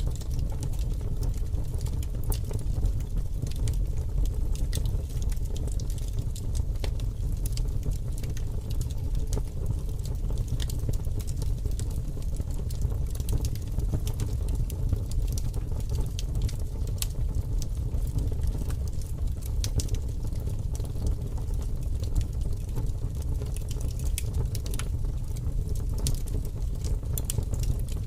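Wood fire burning in a fireplace: a steady low rumble from the flames, with frequent sharp crackles and pops from the burning wood.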